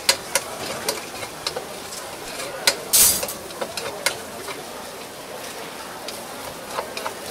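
Rice frying in a wok with a steady sizzle while a spatula stirs it, scraping and knocking against the pan in irregular strokes; the loudest scrape comes about three seconds in.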